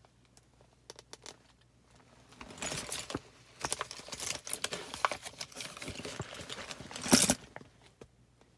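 Rustling and clicking of a felt-lined pin-trading folder's pages being turned by hand, with many sharp clicks, loudest near the end of the handling, then quiet again.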